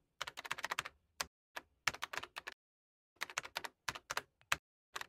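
Typing on a Samsung laptop keyboard: quick runs of key clicks in three bursts with short pauses between, and a last few keystrokes near the end.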